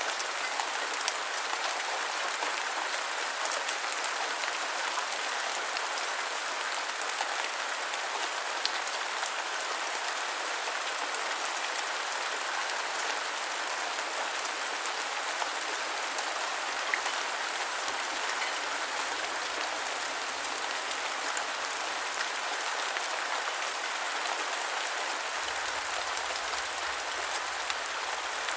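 Steady rain falling, a continuous even hiss of drops with occasional sharper individual drop ticks.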